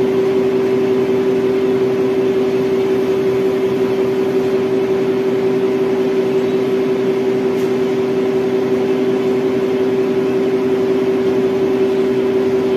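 Electric reach truck's motor and hydraulic pump running with a steady hum and a low whine held at one pitch.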